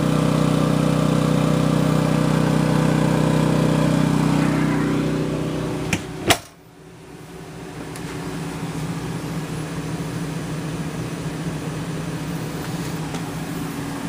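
Champion 2800-watt inverter generator running steadily under the load of an RV's 15,000 BTU air conditioner, a loud engine hum. About six seconds in, a sharp click and a door shutting cut it off, and a quieter, muffled hum follows, with the rooftop air conditioner running.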